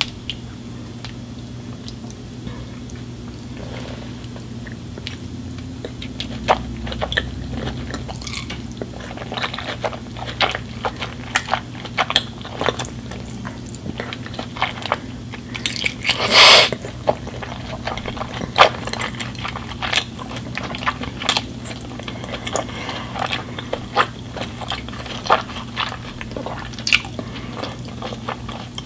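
Close-miked chewing and biting of food, with scattered wet clicks and crunches and one louder crunching burst about halfway through, over a steady low hum.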